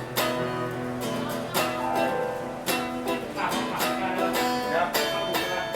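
PRS SE Custom electric guitar on its 85/15 S neck pickup, played through a Mesa Rectoverb 25 amp: a phrase of picked notes and chords, a new note about every half second.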